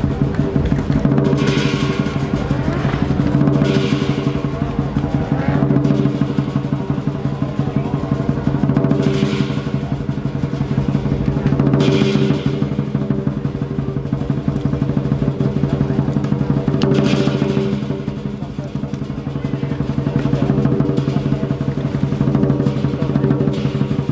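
Traditional southern lion dance percussion: a large lion drum beaten in a fast, steady roll of strokes, with gongs ringing continuously and cymbals crashing every few seconds.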